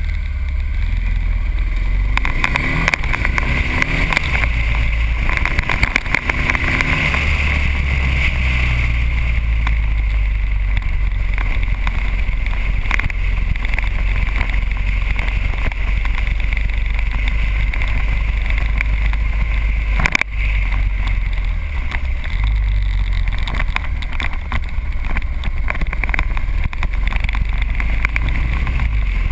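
Motorcycle riding along a road, heard from a camera on the bike. The engine pitch rises as it pulls away and picks up speed in the first several seconds, then it runs at a steady pace under heavy wind buffeting on the microphone.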